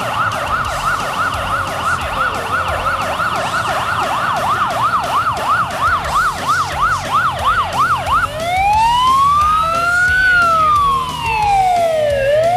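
Police car's electronic siren sounding a fast yelp that gradually slows, then changing to a slow wail: one long rising and falling sweep and the start of another rise.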